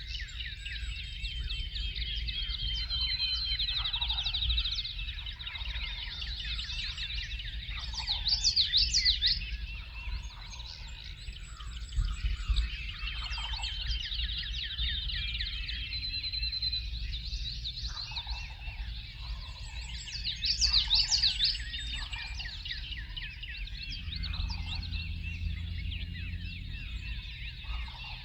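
Spring morning chorus of many songbirds singing and trilling together, with one louder, faster song standing out twice, about 8 and 20 seconds in. A low steady rumble lies underneath, and a faint low hum joins near the end.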